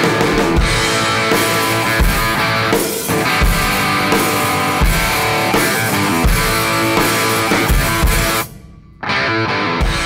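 Background music with guitar and drums, the drum beat landing about every second and a half. Near the end the music cuts out for about half a second, then comes back.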